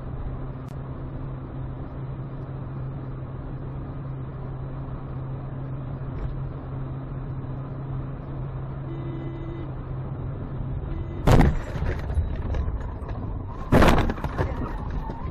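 Dashcam recording inside a car at highway speed: a steady low hum of engine and road noise. About eleven seconds in comes a loud crash, then a second loud crash about two and a half seconds later with smaller knocks after it, as the car collides with a truck.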